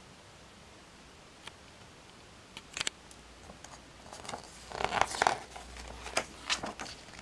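Glossy magazine page being handled and turned: a few short paper crackles, then a couple of seconds of crinkling and rustling near the end.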